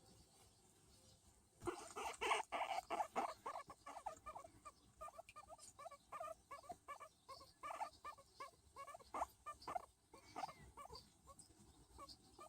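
Skinny (hairless) guinea pig making a quick string of short squeaky calls, several a second, starting about a second and a half in: the happy sounds it makes while being patted.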